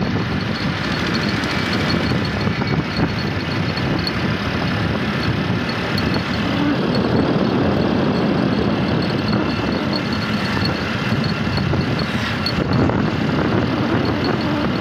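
Steady running noise of a vehicle driving along a road, heard from on board: engine rumble and road noise with no let-up.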